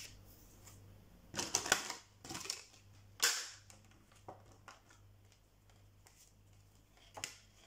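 Off-camera handling noise: a handful of short, sharp clicks and rustles, the loudest about three seconds in, with a faint steady low hum underneath.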